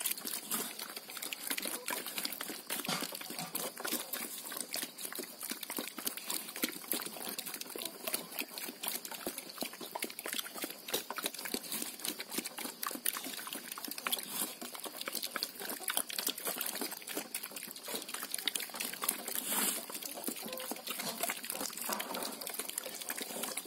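Pigs eating wet slop from a trough: a dense, irregular run of wet slurping, smacking and splashing clicks.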